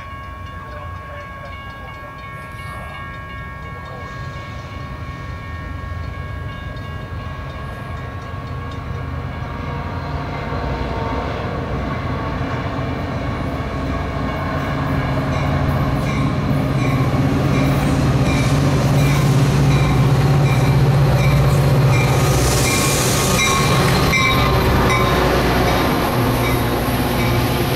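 EMD F40PH diesel locomotive and bilevel commuter coaches approaching and rolling past, growing steadily louder as the train draws near. The engine's low hum is strongest in the second half, with a brief hiss near the end as the cars go by.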